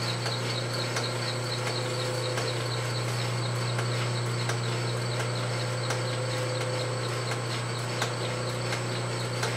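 Metal lathe running with a steady motor and spindle hum, with faint scattered ticks.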